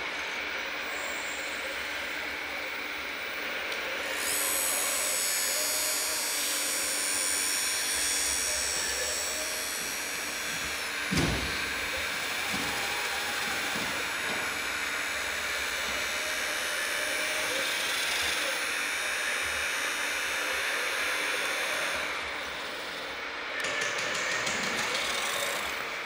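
Hydraulic pump of an RC Mercedes-Benz Arocs tipper truck whining as it raises the loaded tipper bed. The whine starts about four seconds in and stops a few seconds before the end. A single sharp knock comes about eleven seconds in.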